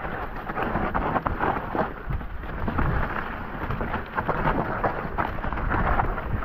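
Mountain bike descending a dirt singletrack: a continuous low rumble of the tyres rolling over the ground, with many quick rattles and knocks from the bike over the bumps.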